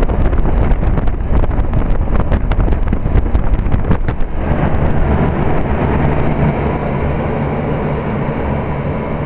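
Old General Electric central air-conditioner condensing unit running, its compressor and condenser fan giving a steady hum. Wind buffets the microphone for roughly the first four seconds, then the hum carries on evenly.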